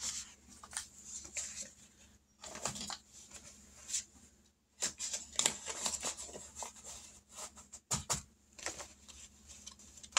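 Paper sheets and envelopes being handled: quiet, irregular rustling with light taps as they are shuffled and set down.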